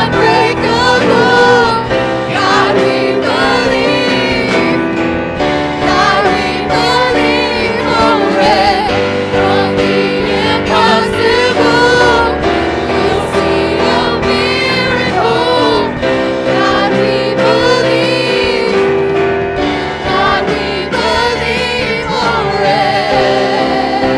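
Worship team singing a gospel worship song into microphones, men's and women's voices together in harmony over a steady instrumental accompaniment.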